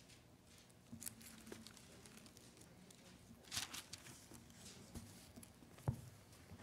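Faint rustling of thin Bible pages being turned, with a few light clicks; a louder brief rustle about three and a half seconds in and a single sharp knock near the end.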